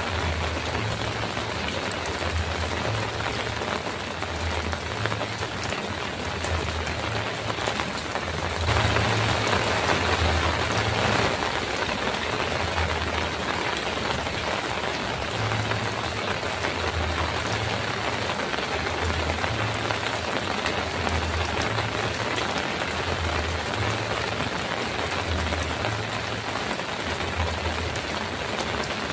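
Heavy rain drumming steadily on a metal roof, a dense even hiss that swells louder for a couple of seconds about nine seconds in. A low, uneven rumble comes and goes underneath.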